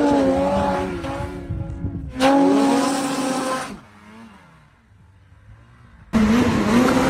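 Snowmobile engine revving hard, its pitch rising and falling under the throttle. About four seconds in it drops away to a much quieter low running sound. It comes back suddenly and loud, wavering, near the end.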